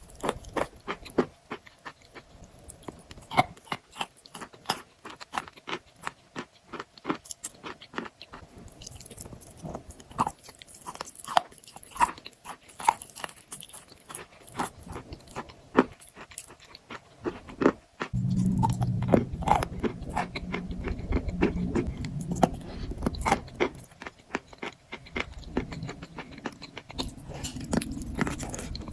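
Close-miked crunching and chewing of chalk, with many sharp, irregular crunches. From about two-thirds of the way in, a louder low rumbling chew runs under the crunches.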